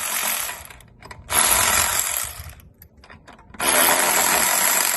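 Enegitech 12V cordless electric ratchet wrench running in reverse in short bursts, spinning loosened lug nuts off a car wheel. It stops about half a second in, runs again for about a second, then starts a third time near the end.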